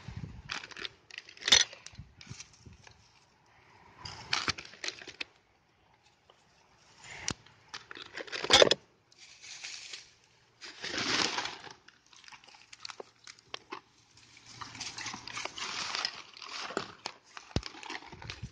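Hands rummaging through dry leaves, twigs and plastic litter on the ground: irregular rustling and crackling in bursts, with a few sharp snaps, the loudest about eight and a half seconds in.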